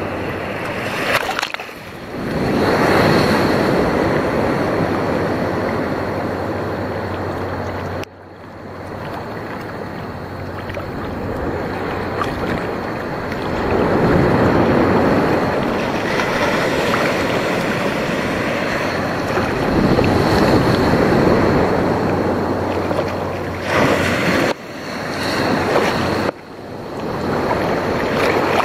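Ocean surf washing and sloshing close around the microphone, swelling and easing as the waves pass. It breaks off abruptly about eight seconds in and twice near the end.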